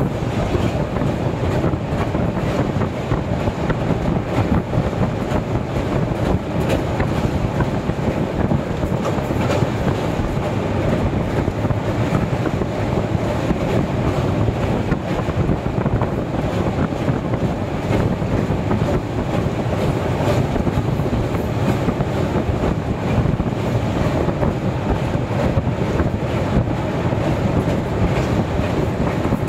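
Train running over a steel truss railway bridge, heard from its open doorway: a steady rumble of wheels on the rails with a rapid, irregular clatter.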